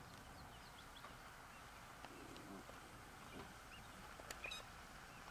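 Quiet bush ambience with faint, scattered bird chirps, and a sharper call about four and a half seconds in.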